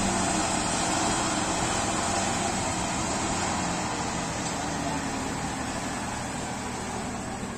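Heavy diesel vehicle engines running steadily on a ferry deck: a low engine hum under a broad rumble that slowly gets quieter.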